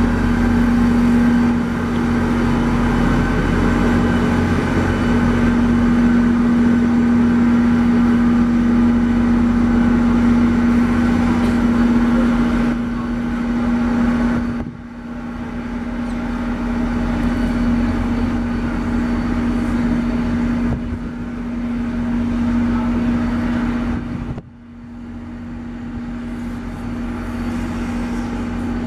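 NJ Transit GP40PH-2B diesel locomotive standing at the platform with its engine running, a steady drone with a constant hum over a low rumble. The sound breaks off abruptly twice and picks up again.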